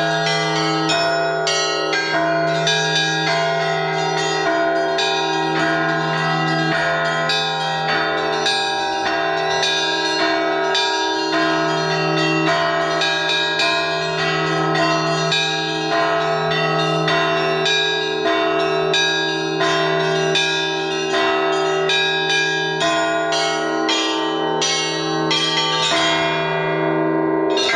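Russian Orthodox church bells being rung together in a zvon: quick, dense strikes of the small bells over the steady hum of the larger bells. The small bells thin out briefly near the end before striking again.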